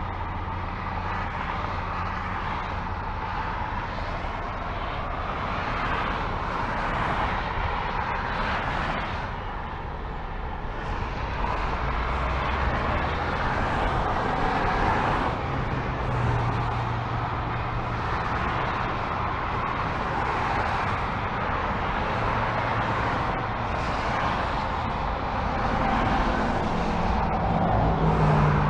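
Continuous multi-lane freeway traffic heard from an overpass: a steady wash of tyre noise and engines from cars and trucks driving by. It swells near the end as a box truck passes close below, adding a low engine hum.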